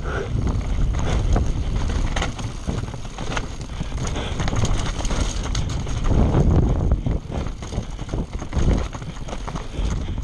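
Scott Spark full-suspension mountain bike descending a rocky dirt trail: wind rushing over the helmet camera's microphone, tyres on dirt and stones, and frequent clattering knocks from the bike as it rides over rocks.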